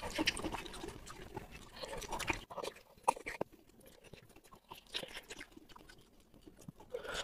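Close-miked mouth sounds of a person eating: chewing with irregular wet clicks and crunches, busier in the first couple of seconds and sparser after.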